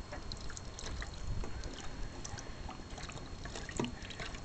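Water trickling from a plastic watering can's spout onto a puppy's head and dripping into a metal bowl below: scattered small drips and splashes over a low rumble.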